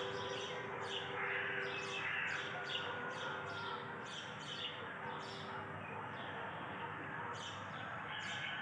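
Small birds chirping repeatedly, several short high chirps a second, over a faint steady drone that fades out over the first few seconds.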